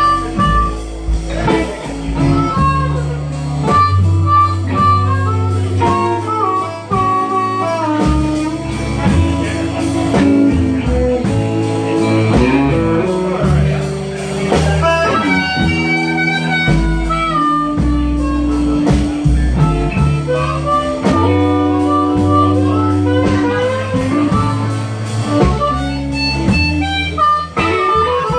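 Live blues band playing an instrumental passage: amplified harmonica blown into a handheld microphone over electric guitar, walking upright bass and drums.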